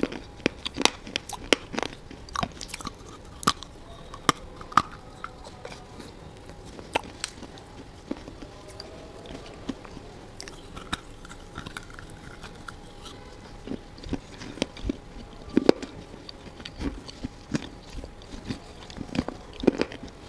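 A person biting and chewing brittle baked clay and slate pieces: irregular sharp crunches. They come thick at first, thin out in the middle, and the loudest crunches fall near the end.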